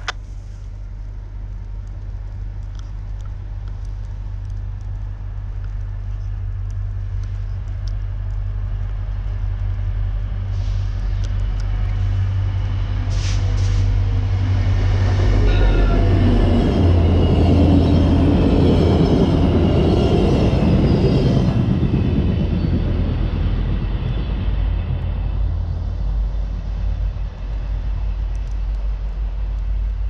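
VIA Rail diesel-hauled passenger train approaching and passing: a deep locomotive rumble grows steadily louder and is loudest about sixteen to twenty-two seconds in as the locomotive and cars roll by, then eases off slightly as the train continues past. A few sharp clicks come about thirteen seconds in.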